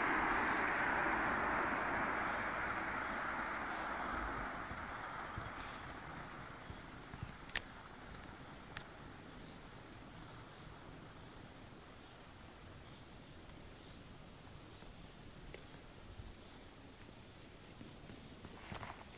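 Cricket chirping steadily, a high, rapid run of short repeated pulses. At the start a broad rushing noise is the loudest sound and fades away over the first five seconds or so.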